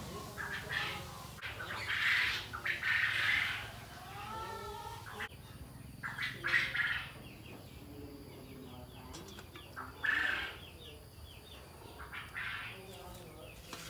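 Birds calling and chirping, with one longer bending call, mixed with short bursts of handling noise as raw quails are laid out on a metal tray.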